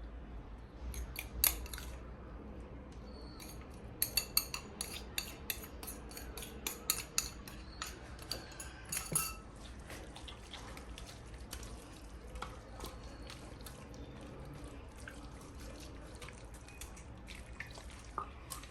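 Kitchen work sounds: a run of sharp clinks and taps of utensils against dishes, thickest in the first half and then thinning out to occasional light knocks.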